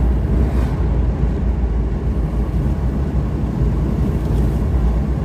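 Steady road and engine noise inside a moving Suzuki Vitara: a continuous low rumble with tyre noise from a bumpy country road.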